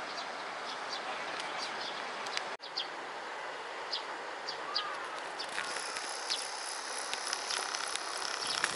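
Outdoor ambience: a steady hiss with insects buzzing and birds giving short high chirps, one of them a curling call about halfway through. A higher, steadier insect buzz comes in over the last few seconds, and the sound drops out for a moment about two and a half seconds in.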